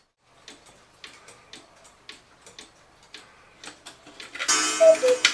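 8-day Oompah cuckoo clock ticking, about two ticks a second. Near the end the cuckoo calls once, a high note then a lower one, over the rush of its bellows, and steady musical tones start to ring.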